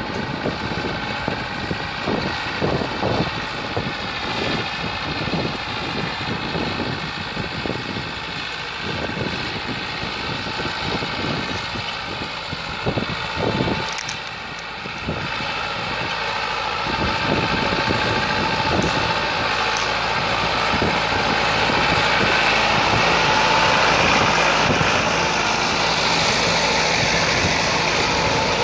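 Massey Ferguson 385 tractor's four-cylinder diesel engine running steadily under load as it pulls an 18-disc harrow through the soil. It gets louder after about fifteen seconds.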